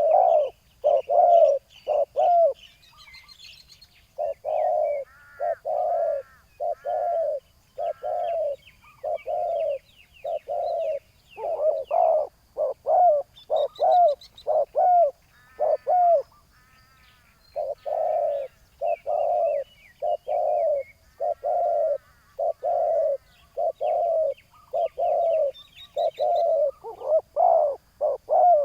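Spotted doves cooing, a long string of low, repeated coos about one every three-quarters of a second, broken by two short pauses. This is the calling of a decoy dove and the wild dove it is luring. Fainter high chirps of small birds run underneath.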